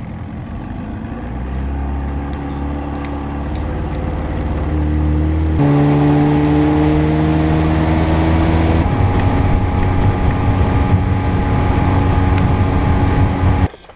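Outboard motor driving a small aluminium fishing boat at speed, with wind and water rush over it. Its pitch climbs over the first few seconds, then holds steady, and the sound cuts off abruptly near the end.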